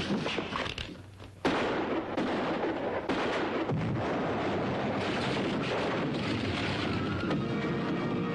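A few knocks, then a sudden explosion about a second and a half in, followed by a sustained roar of blast and falling debris. Music comes in faintly near the end.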